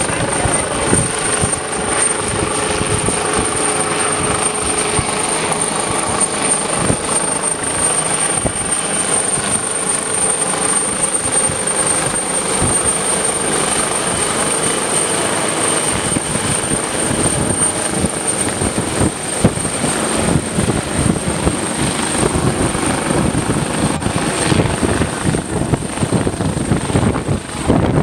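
AgustaWestland AW139 search-and-rescue helicopter hovering close by, its rotor chopping steadily over a steady high whine.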